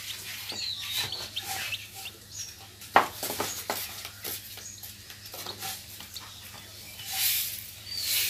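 Newly hatched chick peeping, a few short, high chirps, among rustling of a fleece cloth as it is handled, with a sharp knock about three seconds in and louder rustling near the end.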